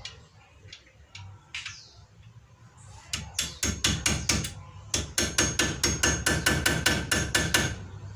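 Hammer blows on metal, tapping a front brake repair-kit part into place on the brake assembly. A few light taps come first, then from about three seconds in a fast, ringing run of strikes at about four to five a second, with a brief break partway through.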